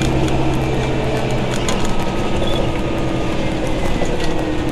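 Inside a moving bus: the engine and radiator cooling fan drone steadily with a low hum, and light rattling ticks come from the bodywork now and then.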